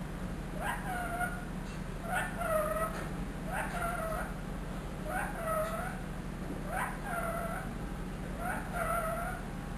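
Ring-necked parakeet calling the same short pitched call six times, about once every second and a half, each call a sharp onset sliding into a brief bent tone.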